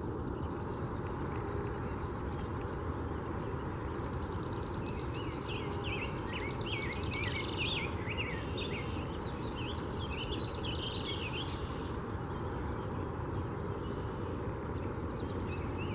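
Several songbirds chirping and singing, with rapid trills and varied short notes, over a steady background rush.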